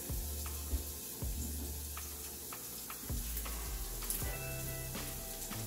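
Olive oil sizzling in a frying pan on the stove, with scattered crackles and pops. Background music with a bass line plays underneath.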